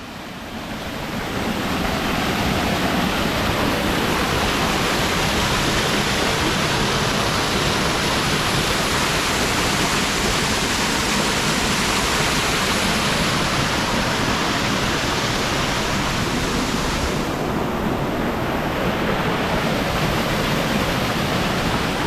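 Waterfall rushing, a steady full noise of falling water, fading in over the first couple of seconds.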